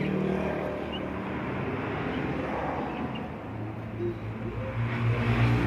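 A motor vehicle's engine running steadily, growing louder near the end.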